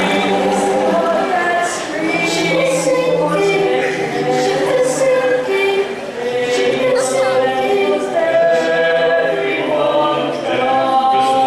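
A men's a cappella vocal ensemble singing in harmony: several voices holding sustained chords that change every second or so, with no instruments.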